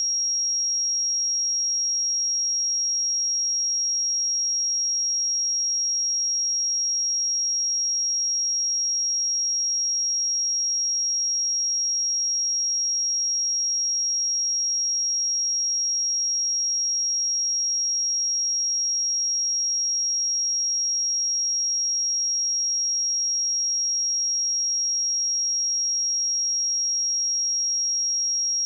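A pure 5612 Hz sine-wave test tone, one steady high-pitched whistle-like pitch held at an unchanging level.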